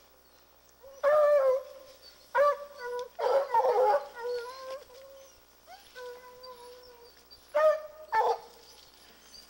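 Treeing Walker hounds baying: about five loud bawls, with fainter drawn-out howls between them.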